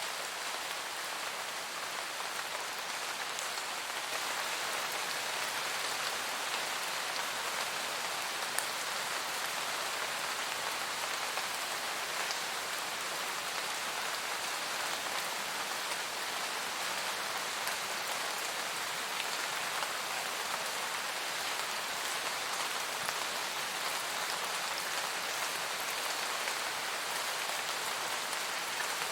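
Steady rain falling on foliage in a forest, an even hiss of many raindrops with scattered individual drop ticks; it swells slightly a few seconds in.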